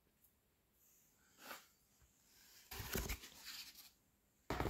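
Handling noise from a foam RC glider being moved and turned over by hand: brief rustling and scraping for about a second past the middle, then a sudden bump near the end.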